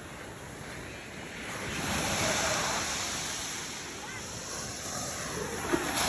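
Ocean surf washing on a beach: a wave swells up about two seconds in and slowly eases off, and the next surge builds near the end.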